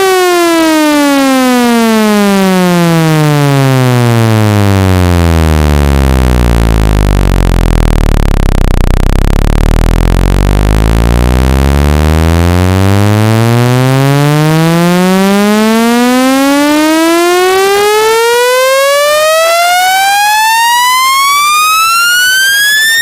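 Speaker-cleaning test tone: a loud, buzzy synthetic tone rich in overtones, sweeping down to a deep bass hum about eight seconds in, then gliding steadily back up to a high pitch near the end. A frequency sweep like this is played to shake water and dust out of a phone speaker.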